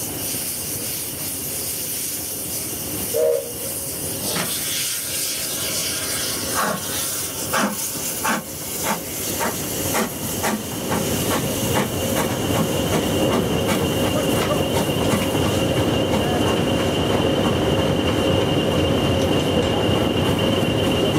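Steam locomotive pulling away: a hiss of steam, then sharp exhaust beats that quicken from about one a second to several a second. Around halfway the beats merge into a steady rumble of the moving train, with a thin high squeal held over it.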